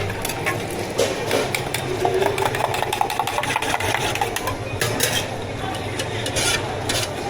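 Drink-making work sounds at a tea-shop counter: a steady machine hum under many short clicks and knocks from cups, lids and utensils being handled.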